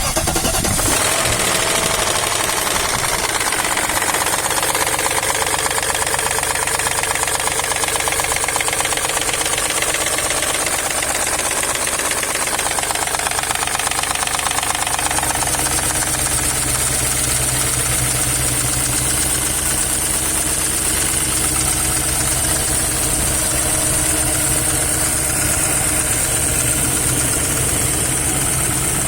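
M-62 engine starting and running steadily with a knock, which has appeared after it stood unused for a long time.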